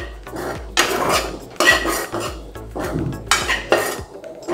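Steel ladle scraping and stirring coarse-ground chana dal around a non-stick kadai, repeated strokes about a second apart, as the dal is roasted in oil.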